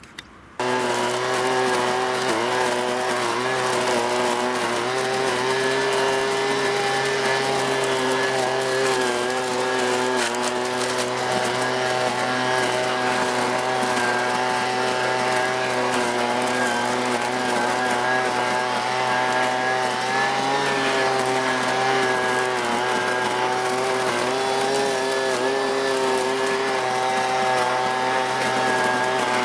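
Husqvarna 125BV two-stroke blower-vacuum engine running steadily in vacuum mode, its intake tube sucking up dry chestnut leaves. The sound cuts in abruptly about half a second in and its pitch wavers slightly as the tube is worked over the leaves.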